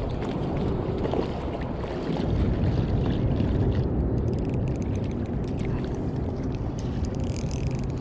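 Steady wind rumbling on the microphone over small waves lapping at a gravel lake shore.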